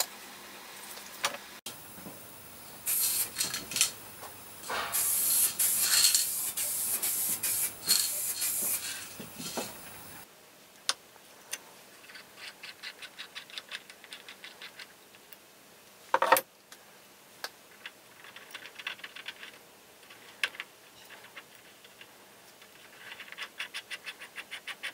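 A loud spraying hiss mixed with scraping, lasting about seven seconds. Then the sound drops to quiet hand work on a brake master cylinder, with short runs of faint rapid ticking as an adapter fitting is turned by hand, and one sharp knock in between.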